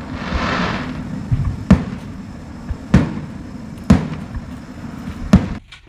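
Fireworks going off: a crackling hiss in the first second, then four sharp bangs roughly a second apart.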